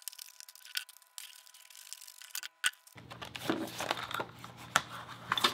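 Scissors snipping through a stiff plastic blister pack with a few sharp clicks, then the plastic crackling and crinkling as the pack is pulled open, busier from about halfway through.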